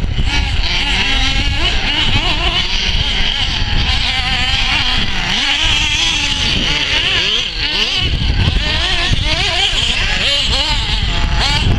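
Radio-controlled off-road cars running on a dirt track, their motors whining and buzzing in pitches that rise and fall again and again as they speed up and slow down.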